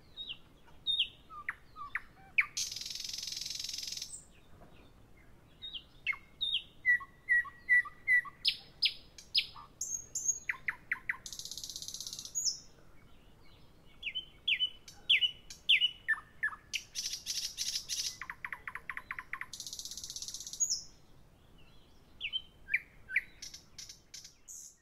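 Woodland songbirds singing and calling: short whistled notes, chirps and quick trills from several birds, broken by a few harsh buzzy notes of about a second each.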